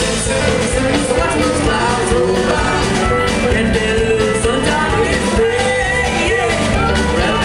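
A live jamgrass band playing loud amplified music, acoustic and electric guitars under a lead melody line that bends in pitch.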